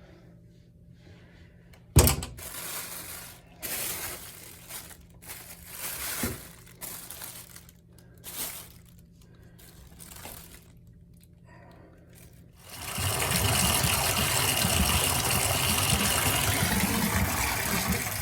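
A plastic zip drain cleanout strip scraping and rustling in a slow-running drain as it is worked to pull out the clog, with one sharp knock about two seconds in. About thirteen seconds in, the faucet is turned on and water runs steadily down the drain.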